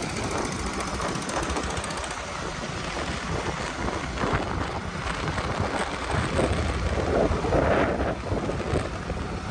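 Wind rushing over the microphone of a moving motorcycle, with steady road and traffic noise underneath.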